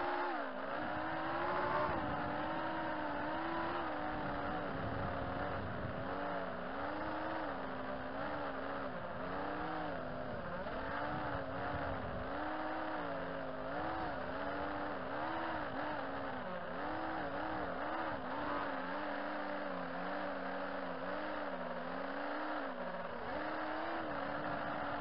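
FPV racing quadcopter's brushless motors (2206 2200kv) and propellers whining, heard from the camera on board, the pitch rising and falling constantly as the throttle changes.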